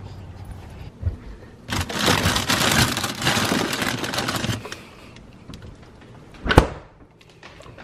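A plastic zip-top bag crinkles and rustles for about three seconds as it is handled inside a refrigerator. A single sharp thud follows near the end.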